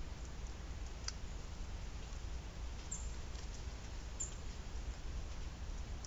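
A few faint, scattered clicks and ticks from a pileated woodpecker's bill pecking at suet pellets through a metal-mesh feeder, over a low steady hum.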